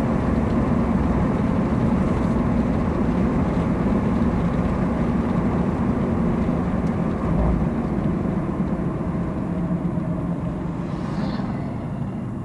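Car road and engine noise heard from inside the cabin while driving at road speed: a steady rumble of tyres and engine that eases off slightly near the end.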